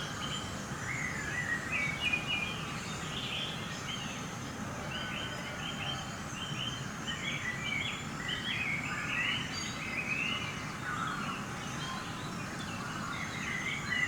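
Field recording of song thrush and blackbird singing, with greylag geese and distant sheep calling, over a steady low rush of wind in tree foliage. This is wind of about 12 to 15 mph, whose muddy noise drowns out quieter birds.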